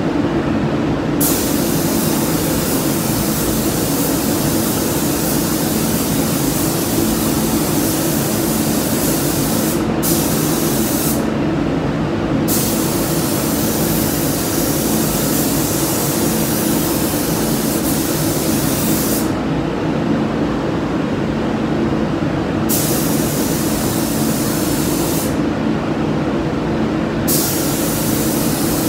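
Gravity-feed paint spray gun hissing in long passes as paint goes on, the hiss cutting off several times for a second or more between passes. Under it runs a steady hum from the spray booth's extraction fans.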